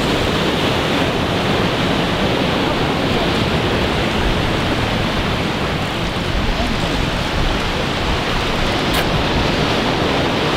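Steady wind and choppy ocean surf, a dense continuous rush heavy in the low end, with wind blowing across the microphone.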